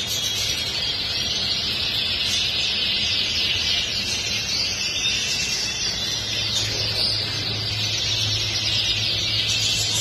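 Many caged canaries singing and chirping at once, a dense continuous chorus of overlapping trills, over a steady low hum.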